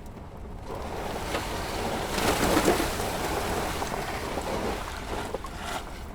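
Steady outdoor rushing noise that swells about two seconds in and eases again toward the end.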